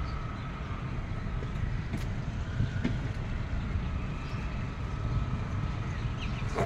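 Steady low rumble of distant road traffic, with a faint steady whine above it.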